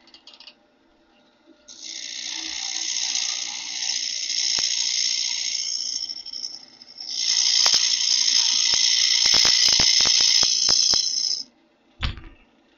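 Bowl gouge cutting into spinning wood on a lathe, a hissing scrape in two passes of about four seconds each over the lathe's steady hum. The second pass carries a quick run of sharp ticks. A single thump comes near the end.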